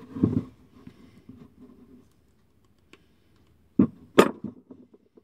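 Handling noises from a shoe last and insole being worked by hand: a dull thump just after the start, light clicks and rubbing, then two sharp knocks less than half a second apart near the end.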